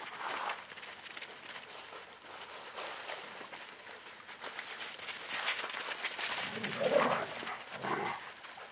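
Dogs playing on dry leaves and sand: steady crackly rustling of paws, and near the end a dog vocalising in two short bursts, the louder one about seven seconds in.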